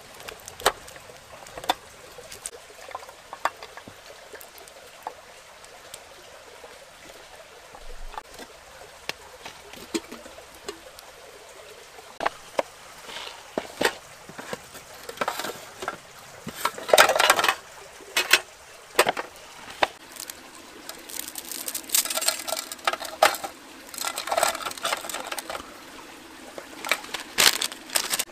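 Food-prep handling sounds at a camp table: scattered small clicks and knocks, then, from about halfway, bursts of plastic and paper packaging crinkling and rustling as an instant-noodle cup is opened and the dry noodle block is put into an aluminium mess tin. A steady faint outdoor hiss lies under it all.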